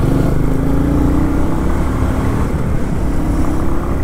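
Motorcycle engine running under way with wind rush over the rider's helmet camera; the engine note climbs during the first second or so and again near the end as the bike accelerates.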